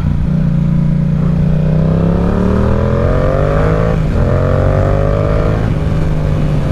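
Yamaha R7 parallel-twin engine accelerating: its pitch rises steadily, dips briefly at an upshift about four seconds in, then climbs again and levels off. Heavy wind rushes over the microphone throughout.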